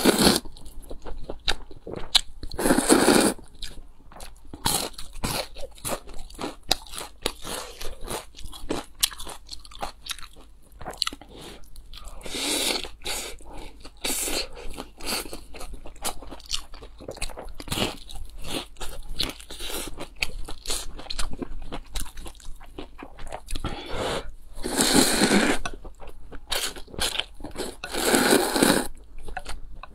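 Close-miked eating: crunchy bites and chewing of a crisp pan-fried coriander and zucchini pancake, broken by several long, loud slurps of noodles from a bowl of soup.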